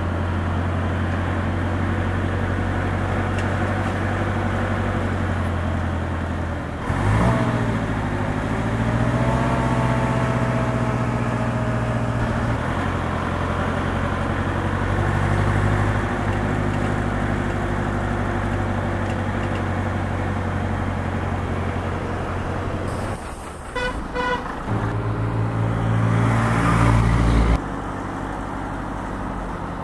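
Vintage Berliet truck diesel engines running on the road, a steady engine note that shifts and rises about seven seconds in as it changes gear. Near the end a few short horn toots, then a louder engine passing by.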